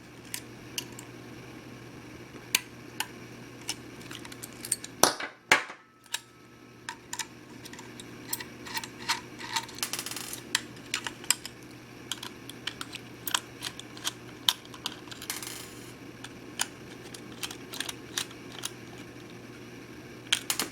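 Small, irregular clicks and ticks of a screwdriver working tight screws out of a laptop's hard-drive bay, metal tool tapping on metal screws and casing, with a couple of louder knocks about five seconds in.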